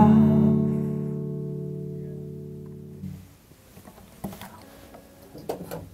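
Final strummed chord on an acoustic guitar, ringing out and slowly fading before it is cut off abruptly about three seconds in.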